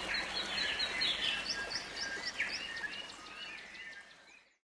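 Several small birds chirping and calling over steady outdoor background noise, the sound fading out to silence near the end.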